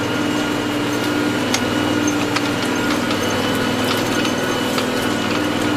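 Farm tractor engine running steadily, with scattered light ticks and rattles.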